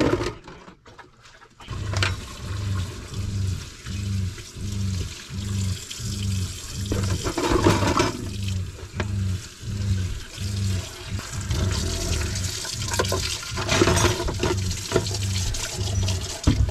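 Water running through a drinking-water filter system into a container, with a low pulsing that repeats about twice a second.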